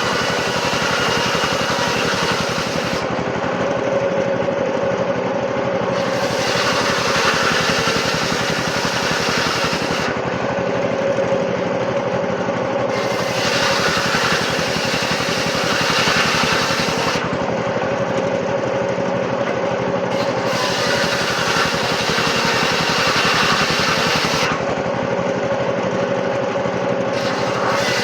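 Sawmill machinery running steadily with an engine-like drone, the noise turning brighter and then duller in turns every few seconds.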